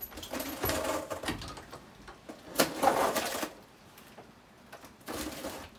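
Cardboard box being opened by hand: tearing and rustling in three bouts, the loudest about two and a half seconds in.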